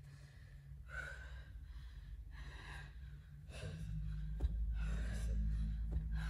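Heavy, quick panting and gasping of a woman working hard through kettlebell deadlifts in a high-intensity workout. A low rumble grows louder partway through, with a couple of sharp knocks.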